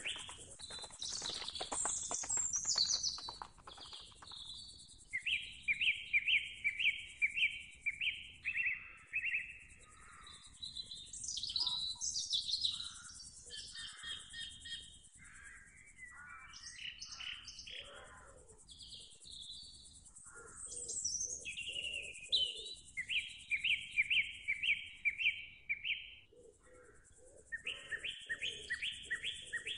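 Several wild birds singing and calling: chirps, quick falling whistles and rapid runs of evenly repeated notes, over and over.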